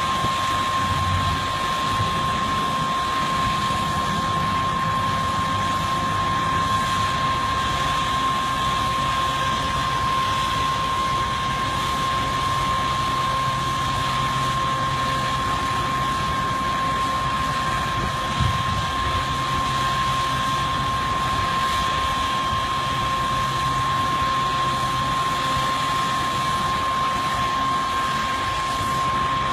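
Demolition machinery running steadily, a low engine drone under a constant high whine, with one short thump about eighteen seconds in.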